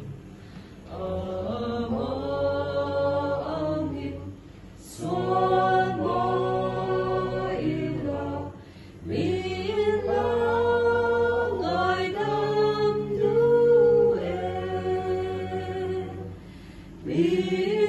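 A small group of voices singing a hymn together unaccompanied, in slow phrases of a few seconds with short pauses for breath between them.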